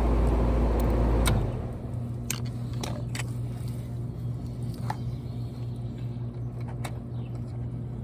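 Hayward HeatPro pool heat pump running with its contactor held in by hand: a deep machine hum that cuts off about a second and a half in when the contactor is released. A lighter steady hum stays on, with a few sharp clicks of tools against the unit.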